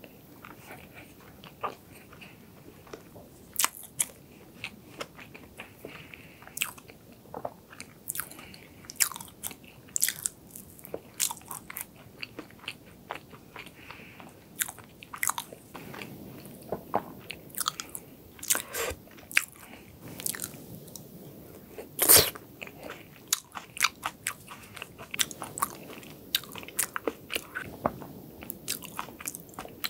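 Close-miked chewing and crunching of chocolate cake: many sharp, irregular crisp clicks from the mouth, with one louder snap about two-thirds of the way through.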